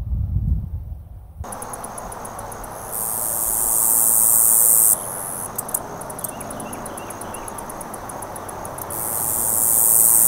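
Cicada calling: a loud, high buzz that swells and cuts off abruptly, twice, with rapid ticking pulses in between. Wind rumbles on the microphone for the first second and a half.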